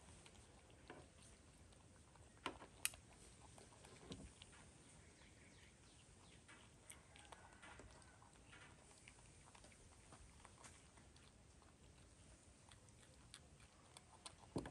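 Near silence, with a few faint scattered clicks and taps, the sharpest around the third second.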